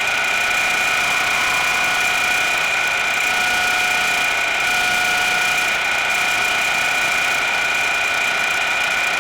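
A machine tool running steadily with a high whine over a constant hiss while an edge is broken on a steel bushing.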